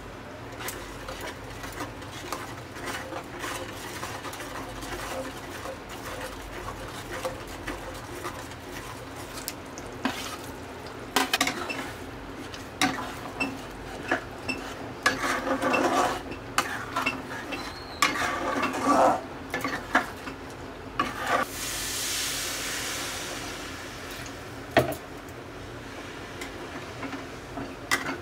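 A metal spatula scrapes and clacks against a kadai as spiced masala is stirred in hot oil, with a light sizzle; the clatter is busiest in the middle stretch. About twenty-two seconds in, water poured into the hot masala hisses for about two seconds, and a single sharp knock of the spatula on the pan follows.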